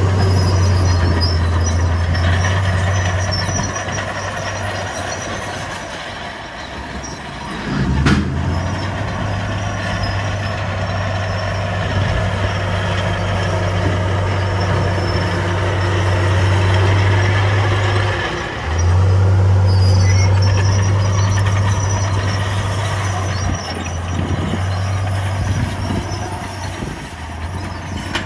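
Heavy diesel earthmoving machinery, a bulldozer and dump truck, running under load, with a steady low engine drone. The drone breaks off briefly with a sharp knock about 8 seconds in and dips again a little after halfway.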